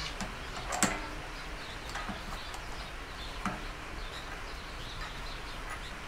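A few light clicks and knocks as a cordless drill is fitted onto the drive shaft of a wire-stripping machine, the sharpest about a second in, with two softer ones later. Faint bird chirps in the background.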